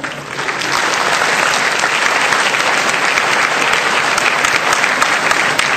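Large seated audience clapping steadily in a big hall, welcoming a speaker to the stage.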